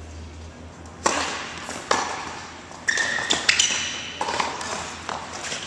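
Tennis ball struck by rackets and bouncing on an indoor hard court during a rally: a series of sharp pops, each with a short echo in the hall, starting about a second in.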